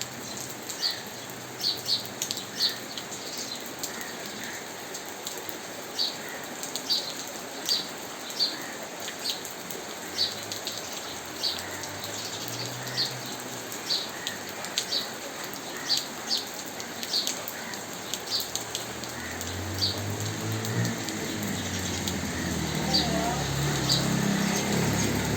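Steady rain with a parrot's short, shrill calls repeated about once a second. In the last few seconds low notes rising in steps come in and grow louder.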